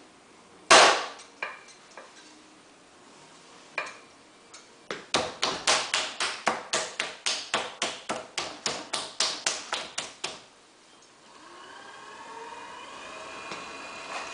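A lump of about 8 pounds of potter's clay thumped down hard, then slapped with the hands about two dozen times in a quick, even rhythm of four or five slaps a second. Near the end a steady motor hum that rises in pitch sets in, fitting a potter's wheel starting to spin.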